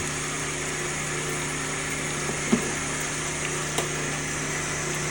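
Rock saw motor running with a steady hum, with two short sharp clicks about two and a half seconds in and again a second later.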